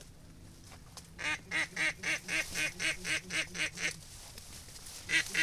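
A hunter's duck call blown in a quick, even series of short calls, about four a second. One run lasts nearly three seconds, starting about a second in, and another begins near the end.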